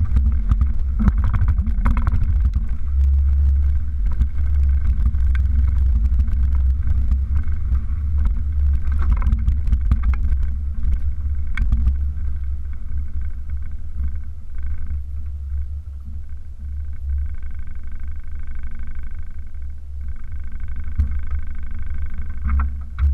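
Toyota truck driving slowly over a rough dirt trail, a heavy low rumble of engine, drivetrain and wind buffeting as picked up by a hood-mounted action camera, with scattered knocks and rattles from bumps. A faint steady whine joins in for a few seconds near the end.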